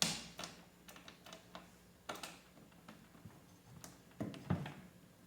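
Scattered light clicks and knocks of a snare drum's metal tension rods and hoop being handled while the rods are tightened by finger. The sharpest click comes right at the start, and a duller, deeper knock comes about four and a half seconds in.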